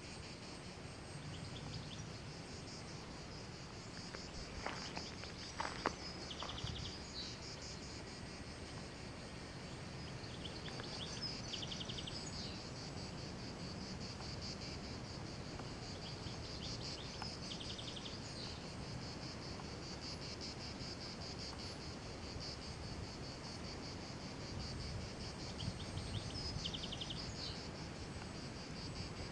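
Insects trilling: a steady high pulsing chorus, with short chirping bursts every few seconds. A couple of sharp clicks about five to six seconds in.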